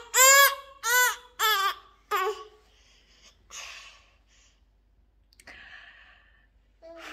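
A toddler squealing with laughter: four short, high-pitched squeals in the first two seconds, then only faint giggles and breaths.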